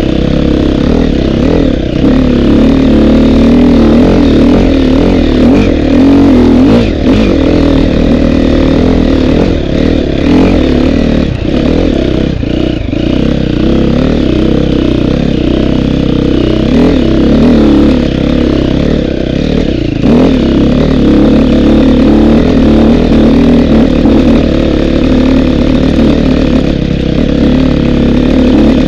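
Dirt bike engine running hard under load up a steep hill, close to the microphone, its pitch shifting with the throttle and briefly dipping a few times.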